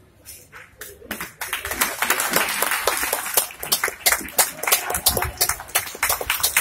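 Audience applauding: a few scattered claps about half a second in, building to dense clapping from about a second and a half.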